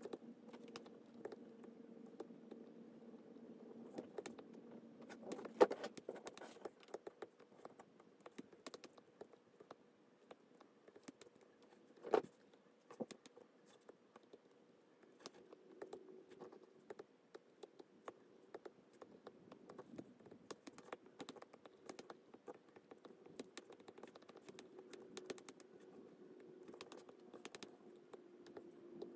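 Many light, irregular taps and clicks of a disc-tipped stylus on a tablet's glass screen, over a faint steady hum. Two sharper clicks stand out, about six and twelve seconds in.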